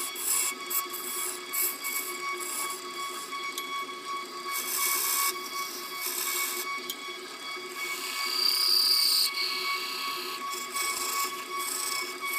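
Wood lathe running with a steady whine while a turning tool cuts the spinning wood, giving hissing scrapes that come and go. The longest and loudest cut is about eight to nine seconds in.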